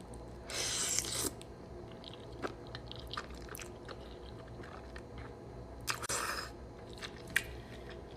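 A person chewing a mouthful of sauced pasta close to the microphone: wet mouth sounds and small clicks, with two louder noisy bursts, one about half a second in and one about six seconds in.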